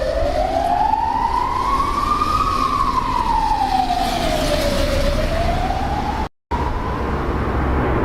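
Emergency vehicle siren wailing, its pitch slowly rising and falling about once every five seconds, over a steady low rumble. The sound cuts out for a split second about six seconds in.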